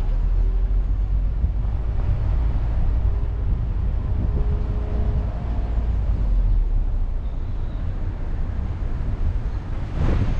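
Wind buffeting the microphone, a heavy low rumble that rises and falls unevenly.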